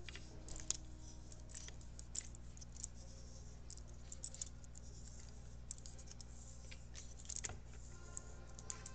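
Small pipe cutter being spun around a coil sleeve on a flipper plunger, trimming the sleeve to length. Its wheel gives faint, irregular scratchy clicks and ticks over a steady low hum.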